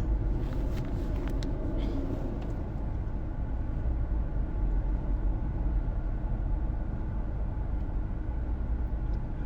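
A steady low rumble, like road and engine noise heard inside a moving vehicle, with a few faint clicks in the first couple of seconds.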